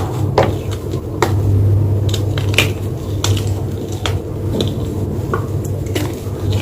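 White gym chalk being crunched and crushed: irregular sharp cracks and crumbles, some louder snaps among them, over a steady low hum.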